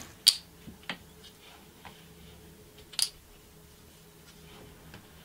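A few short, sharp light clicks over a faint steady hum, the loudest about three seconds in.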